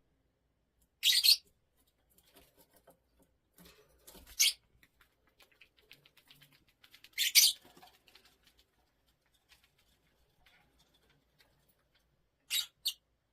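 A pet parrot giving short, high squeaks: one a second in, then about every three seconds, and two quick ones near the end, with quiet between.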